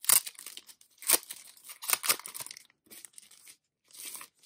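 A folded paper poster being pulled out and unfolded by hand. The paper rustles and crinkles in a series of short, crisp bursts, loudest right at the start, about a second in and around two seconds in.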